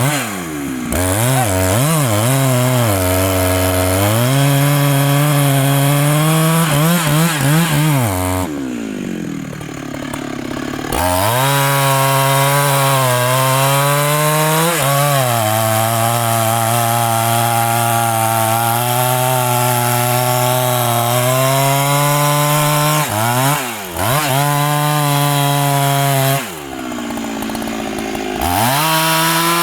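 Large Husqvarna two-stroke chainsaw cutting into the trunk of a big rain tree at full throttle, its pitch wavering under load. It drops back to idle twice, about a third of the way in and near the end, and revs up again each time.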